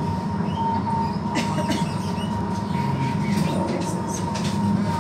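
Ride inside a moving city tram: a steady low rumble of wheels and running gear with a constant high whine, and scattered short clicks and rattles from about a second and a half in.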